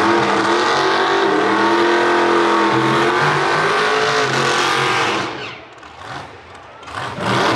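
Drag race car engines revving hard and held at high revs during a burnout at the starting line, with tyre smoke rising. The note wavers for about five seconds, then drops away, and a second loud rev rises near the end.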